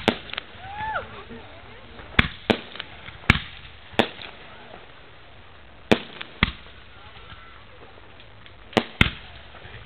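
Fireworks going off: about nine sharp bangs at irregular intervals, several coming in quick pairs.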